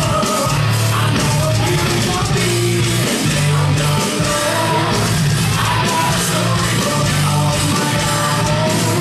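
Loud heavy-metal entrance music with shouted vocals and a steady pounding beat, played over the hall's sound system.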